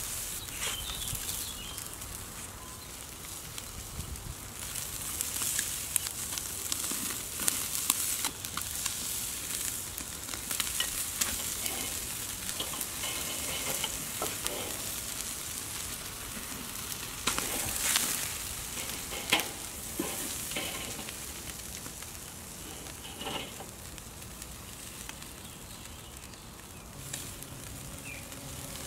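Chicken wings sizzling on a charcoal kettle grill in a wire grill basket: a steady hiss with scattered sharp pops and crackles, a few louder clusters of them along the way.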